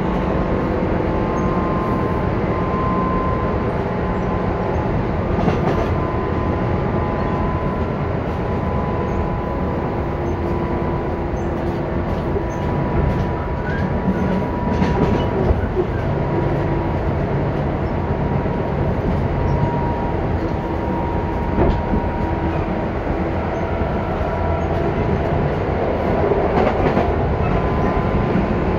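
Tobu 10030 series electric train running steadily, heard from inside a passenger car: a constant rumble of wheels on rail with a steady motor and gear whine and a few light rail-joint clicks.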